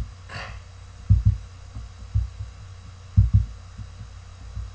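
Low, regular double thumps about once a second, like a heartbeat, over a steady low hum. A brief hiss comes about a third of a second in.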